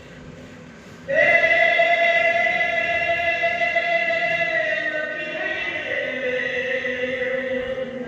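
Music with singing starts suddenly about a second in. Long held notes: a high note sustained for about four seconds, then a step down to a lower held note.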